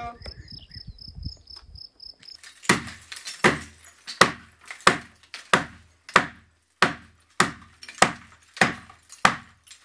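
Hammer blows on a brick wall being knocked down by hand: a steady series of sharp strikes about every two-thirds of a second, beginning about two seconds in.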